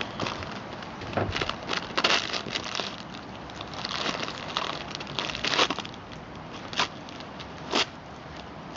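A dog chewing and tearing at a striped paper bag: irregular crinkling and crackling of paper, with a few sharper, louder crackles.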